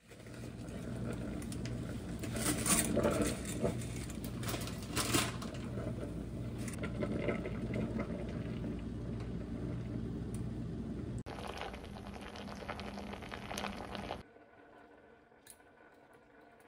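Water boiling in a stainless steel pasta pot on the stovetop over a steady low hum, with a few clatters as dry spaghetti is pressed down into the pot. Near the end it drops away to a faint background.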